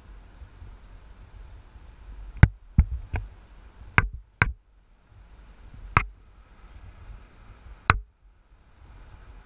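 Car driving slowly on a rough gravel track: a low rumble broken by seven sharp knocks, bunched between about two and a half and four and a half seconds in, then single knocks near six and eight seconds.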